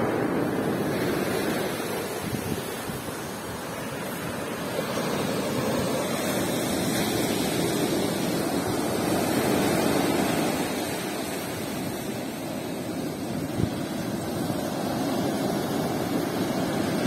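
Rough sea surf breaking and washing up a shingle beach, a steady rushing that swells and eases with the waves over several seconds. One brief knock about three-quarters of the way through.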